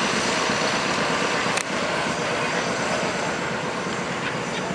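Farm tractor engines running steadily, close by, with one sharp click about a second and a half in.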